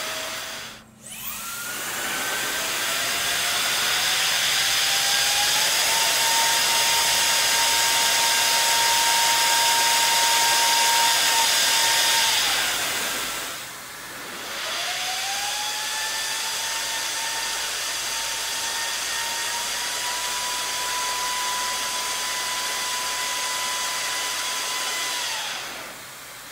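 Hair dryer runs, twice. Each time the motor whine climbs in pitch over a few seconds as it spins up, holds steady over a loud rush of air, then drops away when it is switched off. The second run is quieter, with a slightly higher whine.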